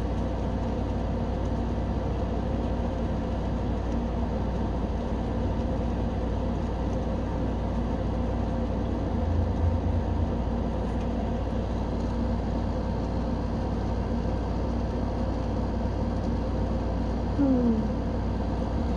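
Steady low hum and rumble under an even hiss of light rain. A short low thump comes about halfway through, and a brief voice sound near the end.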